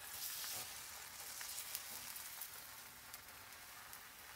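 Thin chapati batter sizzling faintly in a hot, lightly oiled non-stick frying pan as the pan is tilted to spread it and set back down, the sizzle easing a little toward the end.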